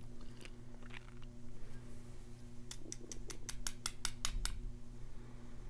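A quick, even run of about ten light clicks, roughly six a second, from small hand tools working at a padlock's pin chambers, over a steady low hum.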